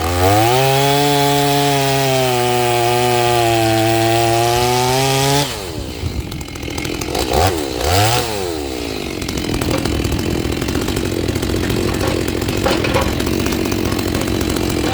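Stihl MS 390 two-stroke chainsaw, rebuilt with a Hipa kit, held at full throttle with its pitch dipping slightly and recovering as it cuts a log. The throttle is released about five seconds in, the saw is blipped twice, and it settles to a steady idle.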